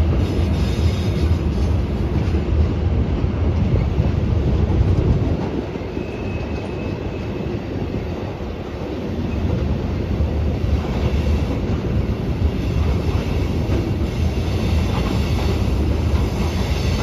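Freight cars of a CSX mixed freight train rolling past: a steady rumble of wheels on rail with clattering. A brief thin squeal comes about six seconds in.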